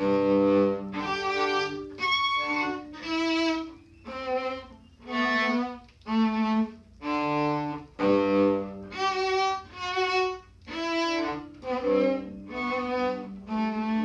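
Violin played in short, separated martelé strokes, about one note a second, each starting cleanly with a brief gap between notes. Some notes catch neighbouring strings, which the teacher puts down to the bow sitting too close to the fingerboard rather than near the bridge.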